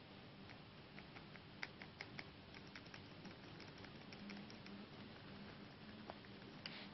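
Faint, irregular light taps and clicks of fingertips on a Samsung Galaxy phone's touchscreen glass, several a second, over a low hiss, with a brief rustle near the end.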